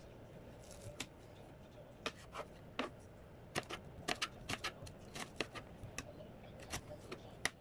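Kitchen knife slicing carrot into thin strips on a plastic cutting board: a run of irregular sharp knocks as the blade strikes the board, about seventeen in all, coming faster through the middle.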